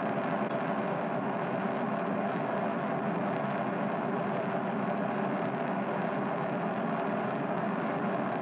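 Steady rushing engine noise of a spaceship's firing thrusters, a sci-fi sound effect, with a faint hum underneath and no change in level.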